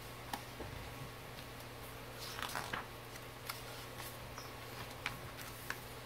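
Pages of a paperback picture book being turned by hand: soft paper rustles and light taps, with a cluster of rustling a little over two seconds in, over a faint steady hum.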